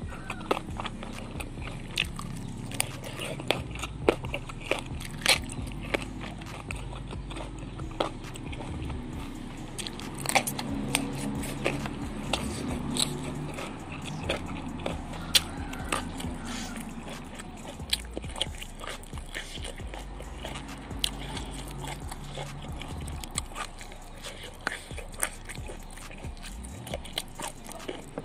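Close-miked eating of crunchy raw vegetables: many sharp, irregular crunches and clicks of bites, with wet chewing in between.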